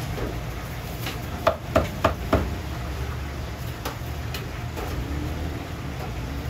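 Cleaver chopping food on a thick round wooden chopping block: four quick, sharp strokes about a second and a half in, then a few lighter knocks, over a steady low hum.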